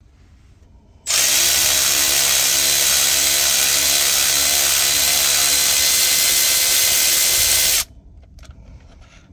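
Milwaukee Fuel cordless electric ratchet running steadily for about seven seconds as it spins out an 18mm rocker arm bolt on a Caterpillar 3176 diesel engine. It stops abruptly and is followed by a few light clicks near the end.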